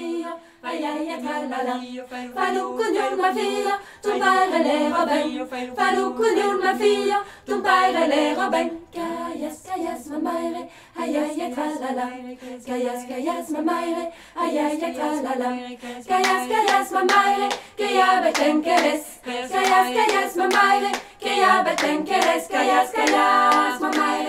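A cappella choir singing a song in several voices, with rhythmic hand claps keeping the beat.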